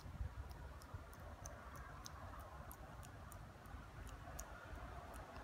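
Faint, irregular small clicks, a few a second, as a vervet monkey picks through the hair on a man's forearm while grooming, over a low rumble.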